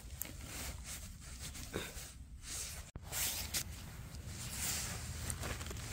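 Rustling footsteps and handling noise on the forest floor, with faint scattered clicks over a steady low rumble; the sound drops out for an instant about three seconds in.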